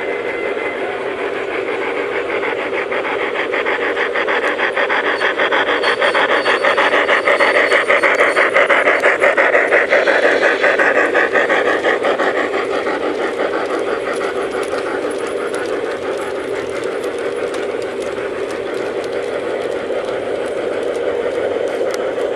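G-scale model trains running on garden track: small electric motors and gearing whirring, with rapid fine clicking of wheels on the rails, growing louder about six to eleven seconds in as a locomotive passes close by.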